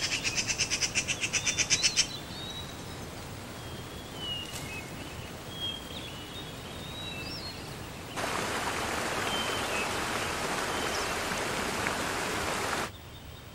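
Red-billed blue magpie giving a fast rattling call for about two seconds, followed by a few faint whistled bird notes over a soft hiss. About eight seconds in, the steady rush of a mountain stream's rapids comes in.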